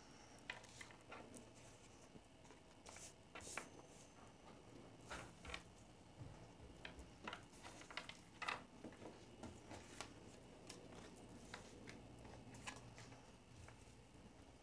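Near silence: room tone with faint, scattered light clicks and taps.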